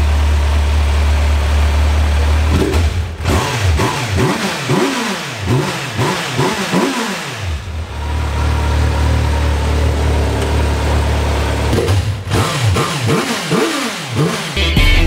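Superbike engine idling through its exhaust, then revved in quick throttle blips, with the pitch rising and falling several times in a row. A second, shorter run of blips comes near the end.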